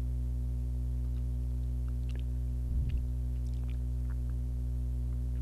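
Steady low electrical hum with several overtones, from the recording's background, with a few faint ticks and a brief soft low sound about three seconds in.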